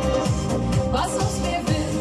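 Woman singing a Schlager pop song live into a handheld microphone over a backing track played through PA speakers, with a steady kick-drum beat about twice a second.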